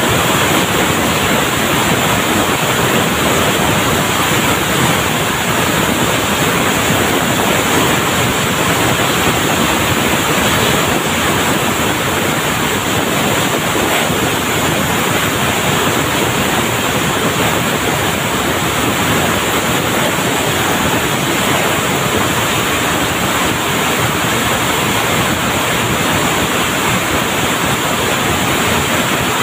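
Steady, loud din of textile mill machinery running, an even hiss-like roar without separate beats.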